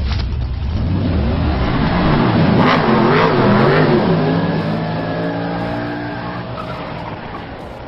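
A vehicle engine revving, its pitch rising and falling several times, then running steadier and fading away near the end.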